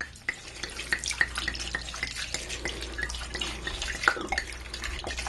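White wine (Chardonnay) pouring from a bottle into a pot of chicken and vegetables: a steady pour broken by many small irregular gurgles and splashes.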